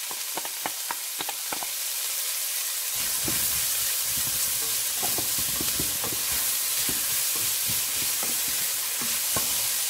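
Chopped red onions sizzling in hot oil in a pan. A wooden spatula clicks several times against the bowl and pan as the onions are scraped in, then knocks and scrapes more busily from about three seconds in.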